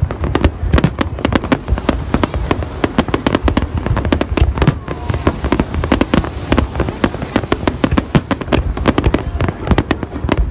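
Fireworks display: shells bursting in a rapid, unbroken run of bangs, several each second.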